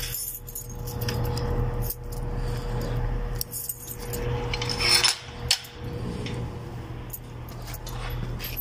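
Keys jangling with scattered light metallic clicks and clinks while a door is being unlocked.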